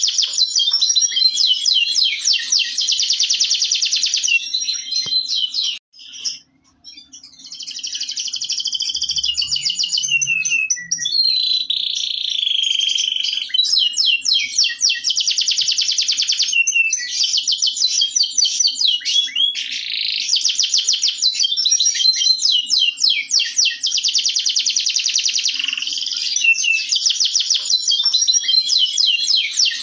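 Local Indonesian canary (kenari lokal) singing a long song of fast trills and rapid repeated notes, with a short break about six seconds in.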